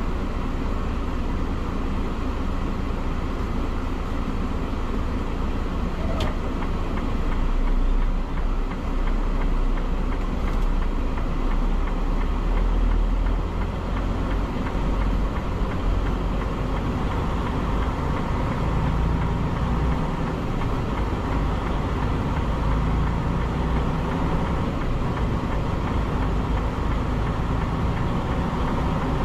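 Semi truck under way, a steady engine and road noise, heaviest in the low end.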